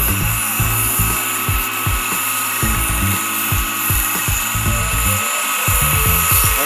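Small bench belt sander running with a steady high whine as a forged steel bar is held against the belt and ground. Uneven low rumbling runs underneath.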